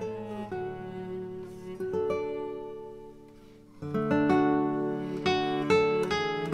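Background instrumental music of plucked notes and chords that start sharply and fade. It dies down about three seconds in, then a louder chord comes in just before four seconds.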